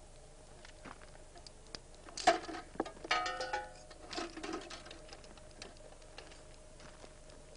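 Metallic clicks and clanks of gear being handled inside a T-72B tank's crew compartment, busiest about two to four seconds in, with a brief ringing of struck metal. A faint steady hum runs underneath.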